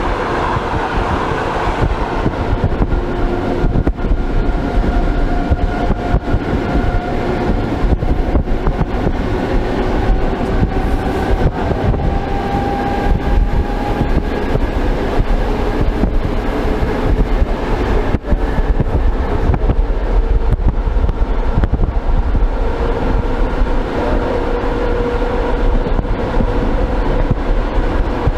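Old suburban electric train running at speed, heard through an open, glassless window: a heavy rumble of wheels on rails with scattered clicks over rail joints. A whine from the running gear rises slowly in pitch through the middle, and another sets in near the end.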